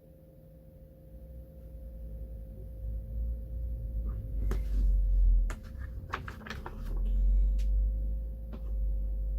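Handling noise as snack packages are picked up and moved on a table close to the microphone: low thuds and rumble with a cluster of sharp clicks and taps about halfway through, over a steady faint electrical hum.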